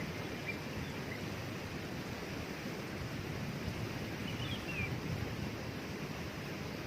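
Waterfall's steady rush of falling water, with a few faint short bird chirps over it, a small cluster of them about four and a half seconds in.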